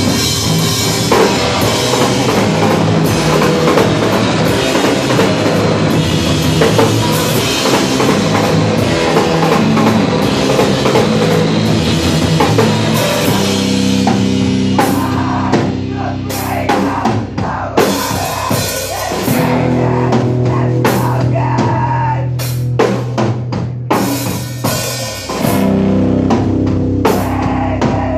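Live rock band playing loudly, the drum kit driving it with bass drum and cymbal crashes. About halfway through the dense wall of sound thins out to held low notes punctuated by separate drum hits.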